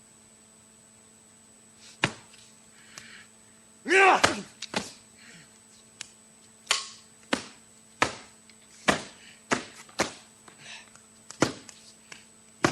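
Martial artists fighting: a series of about a dozen sharp blows and slaps, with a loud shouted yell about four seconds in. Steady tape hiss and hum lie under it.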